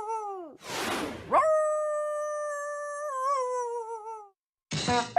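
Cartoon howl sound effect: two long, wavering, pitched howls, each sliding down in pitch as it ends. They are split by a short hissing rush about a second in, and a brief noisy clatter comes near the end.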